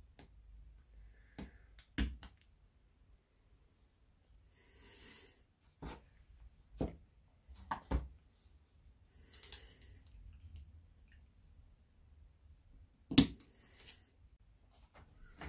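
Small metal parts of a motorcycle brake master cylinder handled and worked with a hand tool: scattered light clicks and knocks and two brief scraping rubs as the dust-seal retainer is pressed in square. One sharp knock near the end is the loudest.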